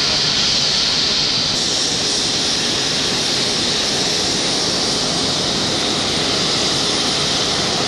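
Air ambulance helicopter running on the ground with its rotor turning: a steady, loud turbine whine over the rush of the rotor.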